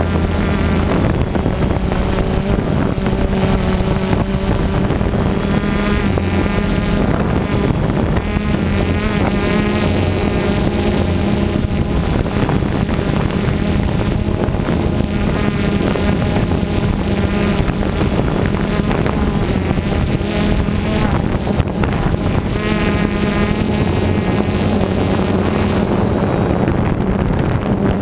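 Multirotor drone's electric motors and propellers whining steadily, heard from the camera on board, the pitch rising and falling as the motors change speed while it manoeuvres. Wind buffets the microphone.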